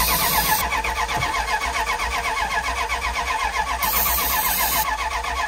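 Red Dodge 1500 pickup's starter cranking the engine steadily without it catching, while aerosol ether starting fluid hisses into the air intake in two sprays, one at the start and another about four seconds in lasting about a second.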